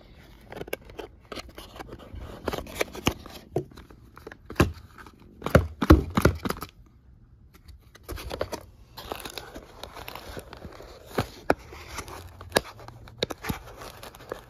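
Hands handling and opening a small cardboard toy-car box: a run of scrapes and sharp clicks, busiest about halfway through, with a short pause just after.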